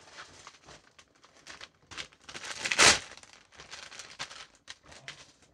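Thin plastic packaging bag crinkling and rustling in fits and starts as a model-kit parts runner is handled and taken out of it, with one louder crackle about three seconds in.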